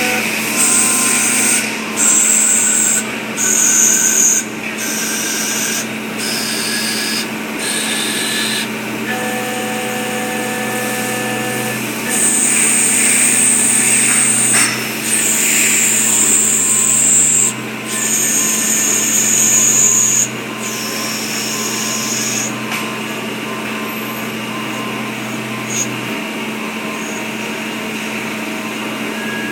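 CNC lathe running a machining cycle: a steady machine hum under a high-pitched whine that stops, starts and shifts pitch in steps every second or few seconds.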